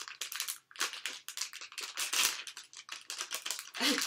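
Foil blind-bag packet crinkling and tearing as it is torn open by hand, in an irregular run of sharp crackles.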